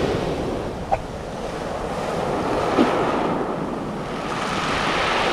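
Sea waves breaking and washing up over a pebble beach, swelling and easing, with wind rumbling on the microphone.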